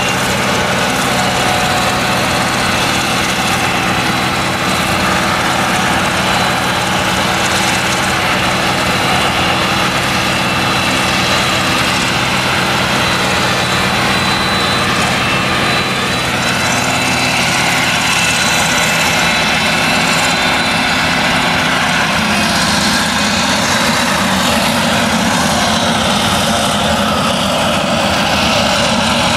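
Claas Jaguar 970 forage harvester chopping maize: its MAN V8 engine runs steadily under load beneath the high whine and hiss of the chopper and crop flow. The pitch of the high whine shifts a little past halfway.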